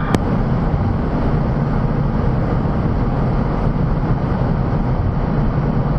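Steady cockpit noise of a MiG-29 in flight, the twin turbofans and airflow rushing as the jet accelerates near Mach 0.9. A single sharp click comes just after the start.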